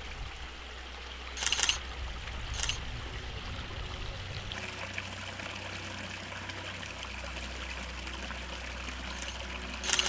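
A small stream trickling over stones, steady throughout, with a few short clicks of a handheld camera's shutter: at about a second and a half, near three seconds, and twice near the end.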